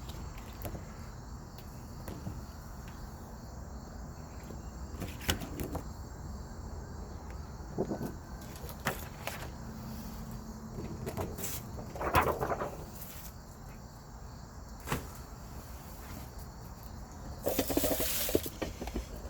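Crickets chirring steadily in the background, with scattered clicks and rustles of things being handled and a short hissing burst near the end.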